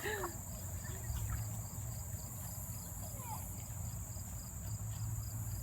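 Crickets or other insects chirping: a steady, even pulse of high chirps, about four a second, over a continuous high drone.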